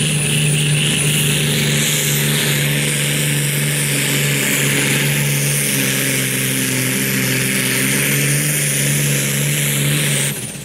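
John Deere pulling tractor's turbocharged diesel engine running flat out under full load down the pull track, with a steady high turbo whistle above the engine note. Near the end the throttle is cut: the engine drops off sharply and the whistle falls away.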